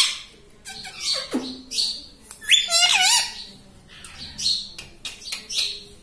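Rose-ringed parakeet calling: a few gliding, whistling calls, a falling whistle about a second and a half in, and a loud wavering squawk about halfway through, followed by a run of short chirps.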